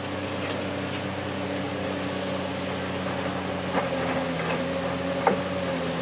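A tracked hydraulic excavator's diesel engine running steadily under working load, its pitch shifting a little as it works. Two sharp clanks, about four and five seconds in, as the bucket strikes rock in the riverbed gravel.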